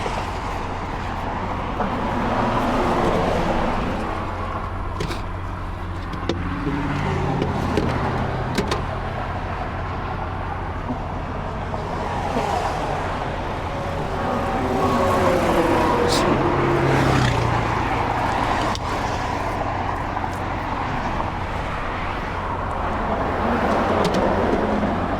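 Interstate traffic passing steadily, with vehicles swelling louder and fading, over a constant low engine rumble. A few sharp knocks come through.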